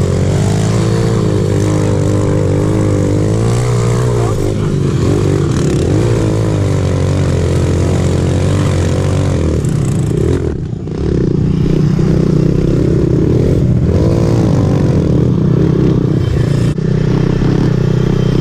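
Small off-road engines running together, a pit bike's single-cylinder four-stroke close by along with dirt bike and ATV engines, the pitch wavering up and down. The sound breaks off abruptly and changes twice, about ten and seventeen seconds in.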